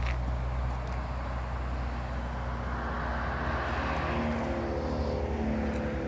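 A road vehicle passing close by: a rush of tyre and engine noise that swells to a peak about halfway through and then fades, over a steady low rumble.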